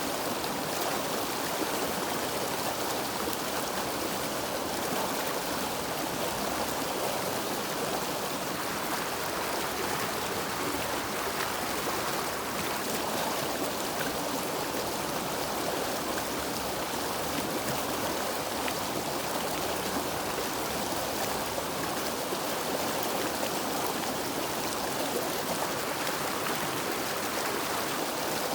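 River water flowing steadily, an even, continuous rush with no breaks or changes.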